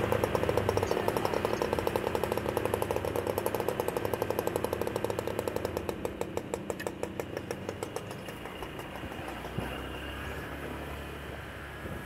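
Small motorcycle engine running with an even pulsing beat that fades away over about eight seconds, leaving a steadier low engine and road hum.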